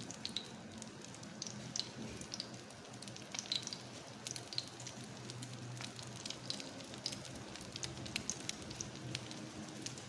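Shami kebab patties frying in hot oil: a steady sizzle with scattered crackling pops.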